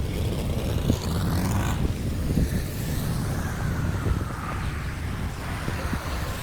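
Steady low rumble of rushing, draining water, with wind buffeting the microphone.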